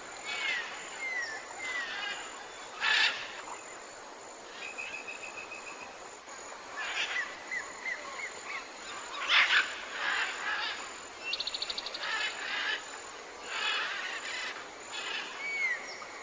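Tropical forest bird chorus: several birds calling over a faint steady hiss, with short slurred whistles, bursts of louder chattering calls about three and nine seconds in, and a fast rattling run of notes about eleven seconds in.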